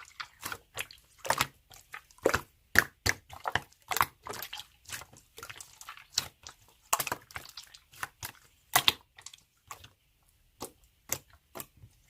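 Slime being squeezed and pressed by hand, making irregular wet clicks and pops, two or three a second, sparser near the end.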